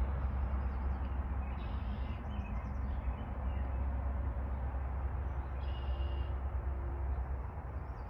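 Wild birds chirping: two short bursts of calls, about two seconds in and again near six seconds, with fainter twittering between, over a steady low rumble.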